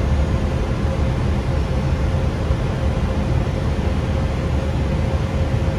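Airbus A320 flight-deck noise on final approach: a steady rush, heaviest in the low range, with a faint steady tone above it.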